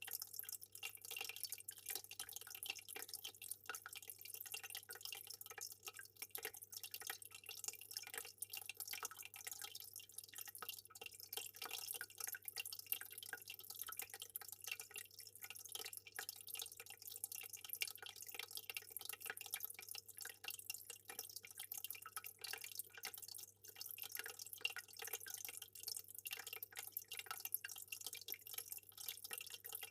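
Aquarium water dripping and trickling: many small, irregular drips and splashes without pause, over a steady low hum.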